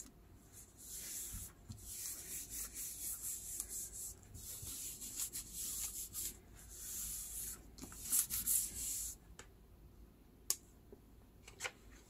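Hands rubbing and smoothing a sheet of paper pressed onto an inked mat: a run of soft, hissing strokes of palm on paper. The rubbing stops about nine seconds in, followed by a couple of small ticks near the end.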